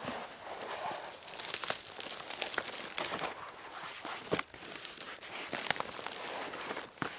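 Steady crinkling and rustling with many scattered sharp crackles, the sound of dry material being handled or crushed.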